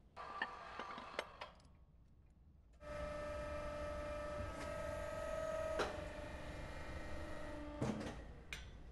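A few sharp metallic clicks and knocks, then an industrial machine starts and runs with a steady whine, with a click part way through. It stops with more clicks near the end.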